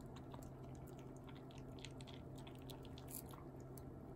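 Shiba Inu puppy eating dry kibble from a stainless steel bowl: faint, irregular crunches and clicks of chewing, eating heartily.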